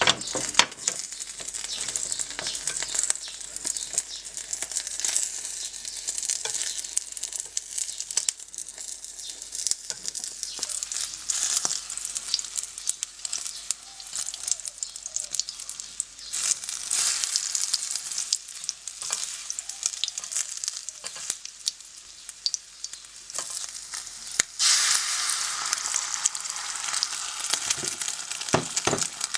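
Food frying in hot oil, a steady sizzle with many sharp crackles, growing louder near the end.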